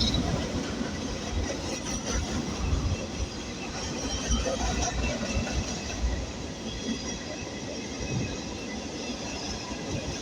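Coal train's freight cars rolling past: a steady rumble of steel wheels on rail with irregular clanks, and faint high wheel squeal now and then.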